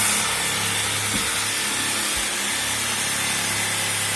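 Electric jigsaw running steadily, its blade cutting through a pumpkin's shell, with a couple of low knocks about one and two seconds in.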